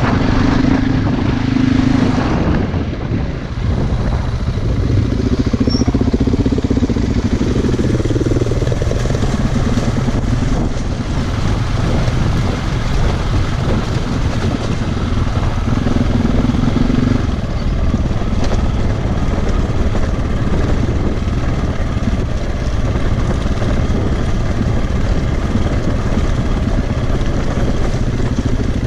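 Single-cylinder four-stroke dirt bike engine running under way, its note shifting now and then with the throttle.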